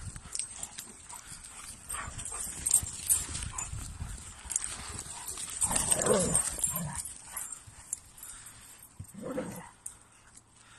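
Quick running footfalls and rustling through forest undergrowth, mixed with sounds from the chasing dogs. A louder dog vocalisation comes about six seconds in and a shorter one a few seconds later.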